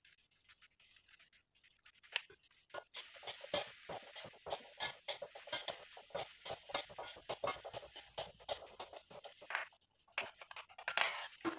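A spatula stirring and scraping rice in a frying pan: a quick, irregular run of clicks and scrapes starts about three seconds in and stops shortly before the end.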